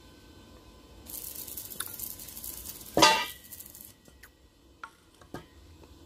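Steel square tubing being handled: a scraping hiss, then one loud clang with a short metallic ring about three seconds in, followed by a few light knocks.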